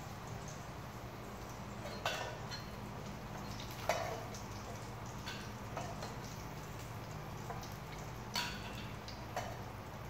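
Food frying in oil in a pan on a portable gas stove, a faint steady sizzle, broken by several sharp clicks and scrapes of a metal spatula against the pan and plate.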